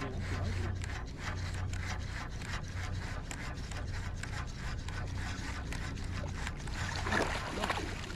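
Sounds aboard a fishing boat: a steady low hum with quick irregular ticking and rubbing, and a brief louder burst about seven seconds in.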